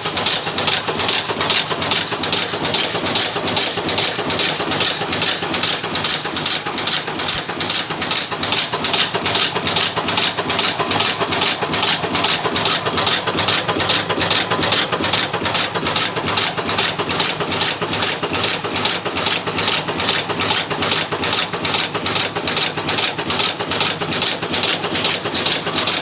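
A machine running steadily with a fast, even clicking rhythm, strongest in the higher pitches and unchanging throughout.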